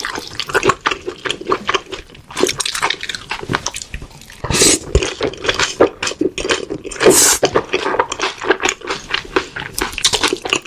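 Close-miked wet eating sounds: a saucy, spicy, stringy dish slurped in from chopsticks and chewed, with many small wet smacks and clicks. Two loud slurps come about halfway through and again a couple of seconds later.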